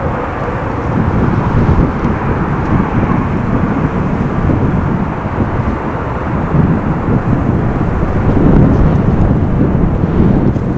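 Boeing 747 freighter's four jet engines climbing out after take-off, heard from the ground as a continuous deep, rough rumble that wavers slightly in loudness.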